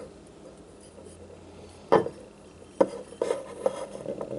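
Handling noise from a fly reel spool as the backing knot is pulled tight around the arbor: two sharp knocks about two and three seconds in, then light clicking and rubbing of line and fingers on the spool.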